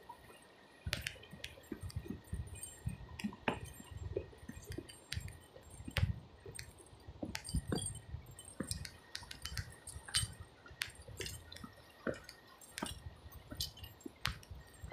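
Irregular sharp clinks and knocks of metal against metal and stone, mixed with low thuds and scuffing steps on loose river rocks, starting about a second in.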